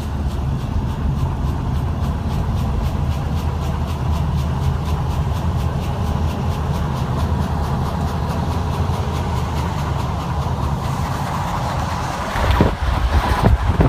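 Car driving over a bridge: steady low rumble of tyres and engine, with a light regular ticking of several a second. About eleven seconds in, wind buffeting the microphone rises and grows louder and gustier.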